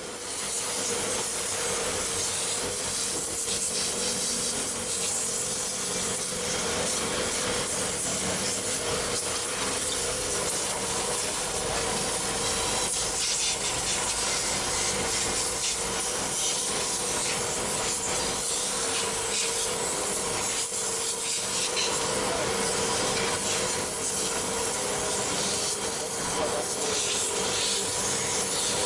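High-pressure washer running and spraying: a loud, steady spraying hiss over the even hum of its pump motor, starting abruptly at the very beginning.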